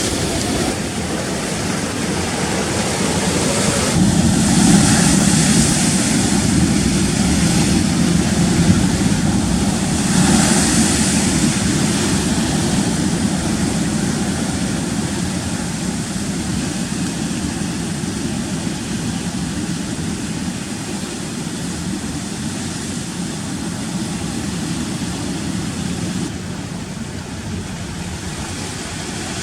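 Rough sea surging and washing over rocks, a continuous low rumble with wind buffeting the microphone; the surf swells into louder hissing washes about four seconds and ten seconds in.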